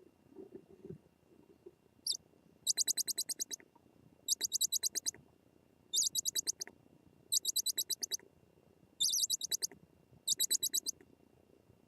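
A bird calling in six short, high-pitched rapid trills, each a quick run of about ten notes, repeating about every one and a half seconds.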